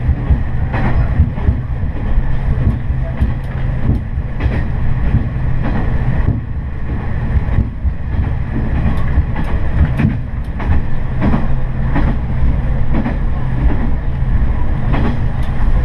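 Noto Railway diesel railcar running along the line, heard from inside the cab: a steady low engine and wheel rumble with short clicks as the wheels pass over rail joints.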